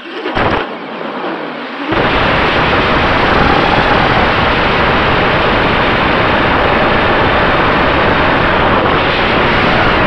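Heavy wind rush and motor noise on an FPV drone's onboard camera microphone, setting in loudly about two seconds in and holding steady, after a shorter burst near the start.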